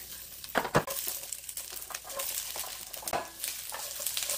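Garlic scapes and bell pepper strips tipped into a hot pan of frying garlic cloves, landing with a couple of loud clatters a little over half a second in, then sizzling as they are stir-fried with a spatula.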